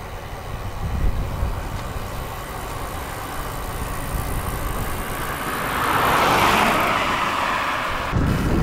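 A car passing on the highway: its tyre noise swells in the second half and fades again. There is a steady low rumble underneath from wind on the microphone of a moving bicycle.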